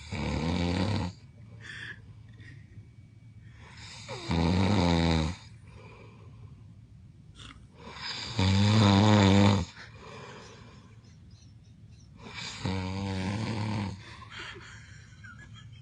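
A man snoring loudly in his sleep: four snores, each about a second long and about four seconds apart, with quiet breathing between them. The third snore is the loudest and the last is softer.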